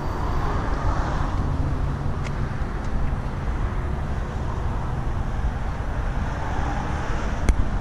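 Steady low rumble of outdoor vehicle and traffic noise, with one sharp click near the end.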